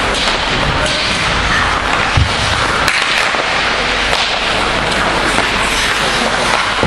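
Ice hockey play in a rink: a steady hiss of skates and arena noise, with scattered sharp clacks of sticks and puck and a single thud about two seconds in.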